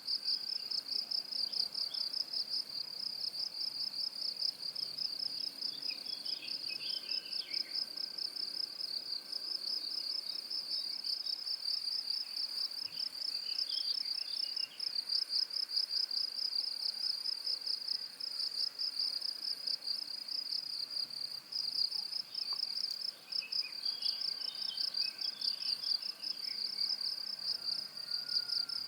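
Cricket chirping in a rapid, unbroken high-pitched trill. A few fainter, lower chirps come through three times.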